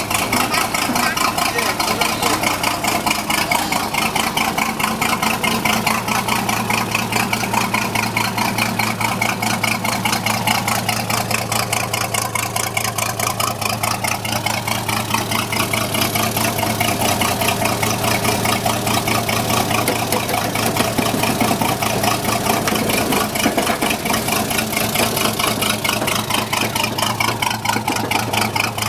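Engine of a small narrow-gauge locomotive running steadily as it pulls along the track, heard close to its upright exhaust pipe, with rapid, even exhaust pulses.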